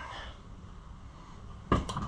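Quiet workshop background noise, then one short clack near the end from handling the dirt bike's plastic air box parts.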